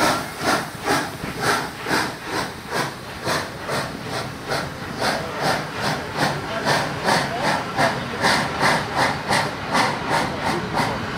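Steam locomotive Ol49-59 pulling away with a train of passenger coaches: rhythmic exhaust chuffs over a steady hiss of escaping steam. The beat quickens from about two to about three chuffs a second as the train gathers speed.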